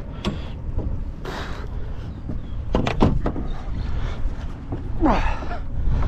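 Steady wind rumble on the microphone and water lapping at the boat's hull, with a few sharp knocks about halfway through.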